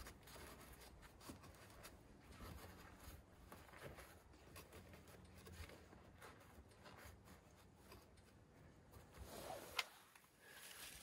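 Faint rustling and scraping of hands and fabric working at the base of a beehive, with one sharp click about ten seconds in.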